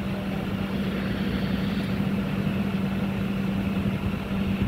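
A truck-mounted borewell drilling rig and its Doosan air compressor running steadily: a constant machine hum with one unchanging low tone over a dense rumble.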